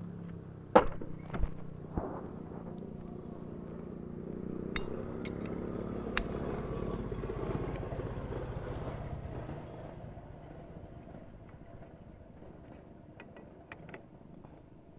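A few sharp metal clinks of a T-handle socket wrench on the cam chain sprocket bolt in the first two seconds. Then a vehicle engine passes, growing louder over several seconds and fading away, with a few faint tool clicks near the end.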